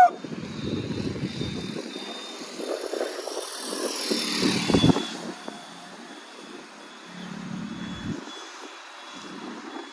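Motorcycle ride noise: steady engine and wind drone on a ghat road, swelling into a louder rush about four to five seconds in with a short knock at its peak.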